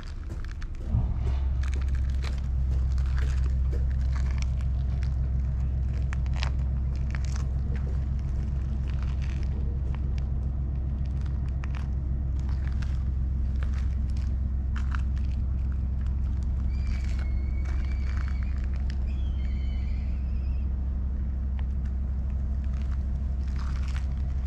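A steady low rumble with a fast, even pulse starts suddenly about a second in and keeps going. Two short high whistled calls come close together about two-thirds of the way through.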